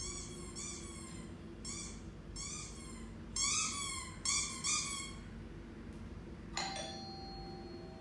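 Kitten mewing sound effect: a run of short, high calls that rise and fall, loudest around the middle. Near the end comes a sharp click, followed by a steady high ringing tone.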